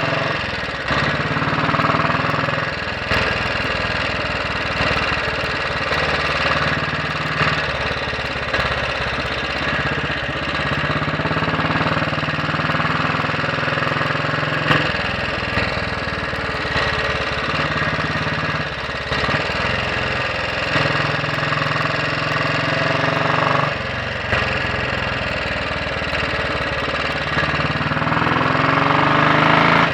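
Royal Enfield Bullet 500's single-cylinder four-stroke engine running on the road, its inlet cam retarded by one tooth. Its pitch steps up and down several times with throttle and gear changes, and it rises as the bike accelerates near the end.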